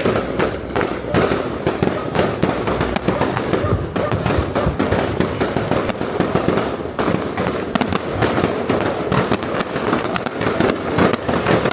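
Fireworks going off in rapid succession: a dense, continuous crackle of pops and bangs with no pause.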